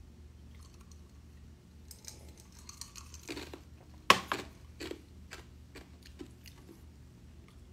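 Drinking cola from a glass: a few swallows and small clicks, with one sharp knock about four seconds in, then quiet room tone.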